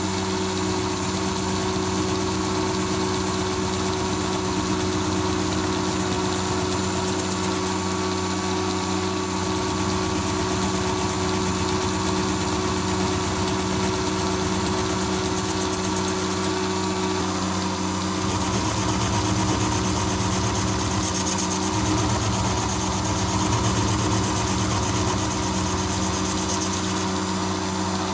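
Metal lathe running steadily at about 510 rpm, spinning a small 80 mm four-jaw chuck held piggyback in the main chuck: a steady motor and drive hum with a high whine.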